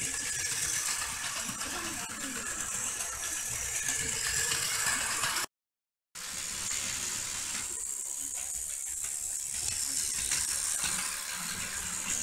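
Plarail toy train running on plastic track: its small battery motor and gearbox whir and the wheels rattle steadily over the track joints. The sound cuts out completely for about half a second just past the middle, then the same running rattle resumes.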